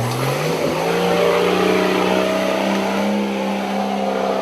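An off-road 4x4's engine revving up through the first second, then held steady at high revs.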